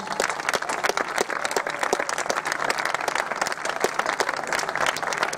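Audience applauding, many hands clapping steadily and densely.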